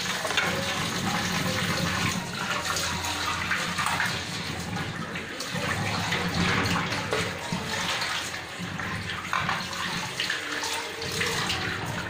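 Kitchen tap running steadily, its stream splashing over a steel cup being rinsed by hand and into a stainless steel sink.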